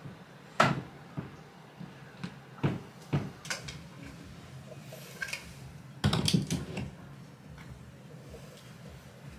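Scattered knocks and clunks of things being handled while a room is rearranged: a wooden-framed floor mirror shifted into place and items set on a wall shelf. The loudest knock comes about half a second in, with a quick cluster of clunks around six seconds.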